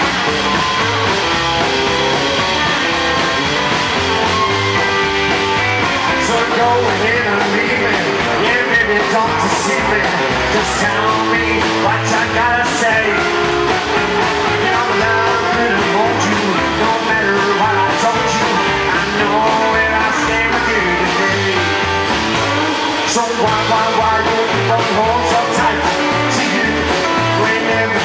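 Live rockabilly band playing: electric guitar, acoustic guitar, slapped upright double bass and drums, with a man singing lead into the microphone. The music is loud and unbroken, with a steady driving beat.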